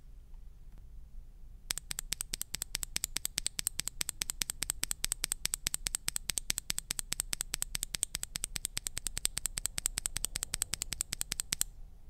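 A Gazzew Boba U4T tactile mechanical keyboard switch capped with a PBT keycap, pressed again and again by finger: rapid, evenly spaced plastic clacks, roughly eight a second, each with a bright high ring. They begin about two seconds in and stop abruptly near the end.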